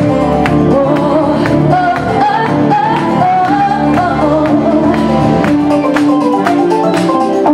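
Live band playing with a woman singing into a microphone, her voice sliding through wavering runs over sustained electric guitar and keyboard chords and a steady drumbeat.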